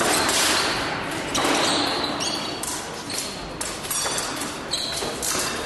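Busy sports-hall background noise with scattered thuds and knocks, some faint high tones among them.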